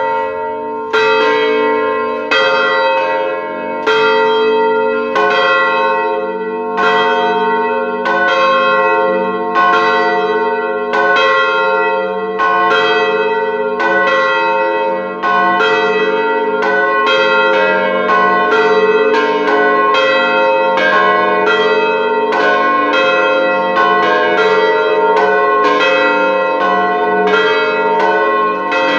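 Three swinging church bells of 900, 500 and 350 kg, tuned f', A-sharp' and c'' and cast by the Huta Małapanew foundry in Ozimek, ringing together. Their strikes overlap and ring on, and come closer together from about halfway in.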